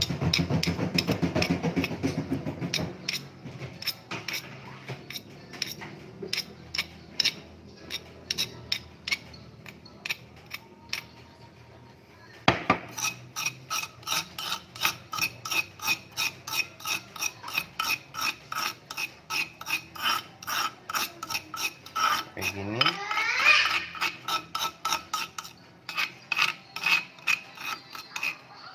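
Metal spoon and stone pestle scraping ground spice paste across a flat stone mortar (cobek), gathering it into a pile: repeated short rasping strokes, about two or three a second, with one sharper knock about halfway through.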